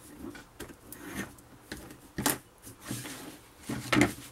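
Paper being rubbed down and handled on cardboard: soft rustling and scraping, with two louder crinkles, one about two seconds in and one near the end.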